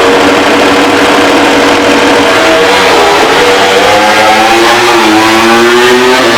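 MotoGP prototype racing motorcycle engine held at steady high revs, as on launch control, then rising in pitch as the bike accelerates away, with a sudden drop near the end as it shifts up a gear.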